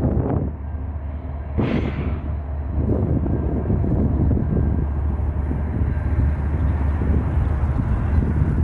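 Freight train rolling past with a steady low rumble, and a brief sharp hiss about two seconds in.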